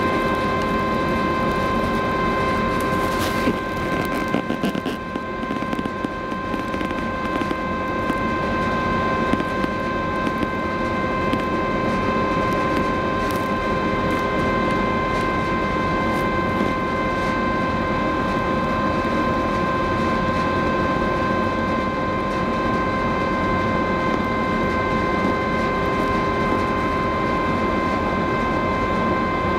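Steady machinery hum of a large cruise ferry, the Silja Symphony, carried across the harbour, with several constant whining tones over an even rumble. A few brief knocks come about three to five seconds in.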